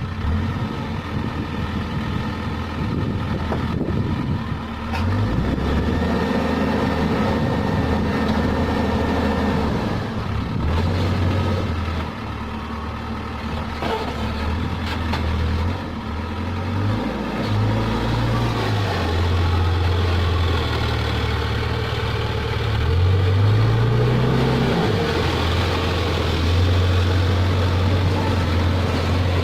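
Case backhoe loader's diesel engine running under working load, its pitch rising and falling as the hydraulics are worked, with a few faint knocks.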